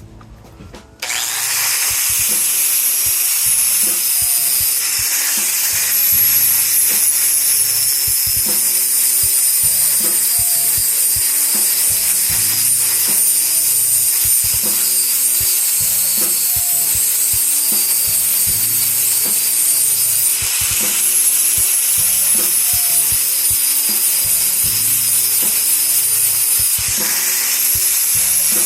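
Small carried saw blade cutting through the protruding end of a hickory hammer handle, continuous rasping that starts abruptly about a second in and pauses briefly a few times.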